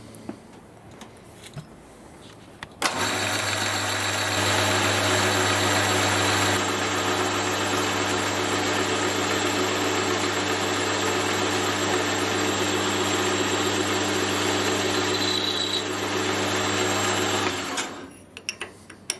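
Metal lathe starting about three seconds in and running steadily with a motor hum while turning a machine-clamp hinge pin down to size, then switching off near the end, followed by a few light clicks.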